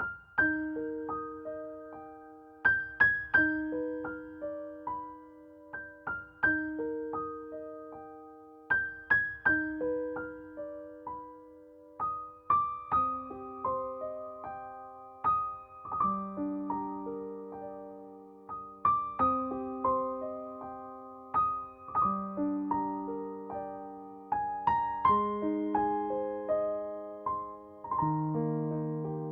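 Background piano music: a gentle, steady pattern of struck notes and chords, each note ringing and fading.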